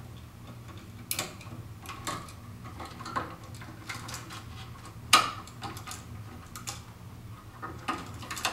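Irregular small clicks and taps of a duplex outlet and its copper wires being handled as the wire ends are bent into hooks for the screw terminals, the sharpest click about five seconds in, over a faint steady low hum.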